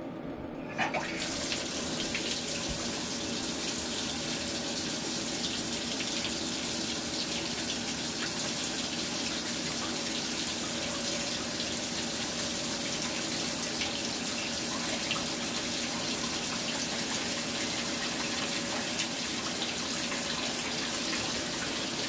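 A faucet handle is turned with a click about a second in, and water starts running from the tap, then runs steadily and unbroken.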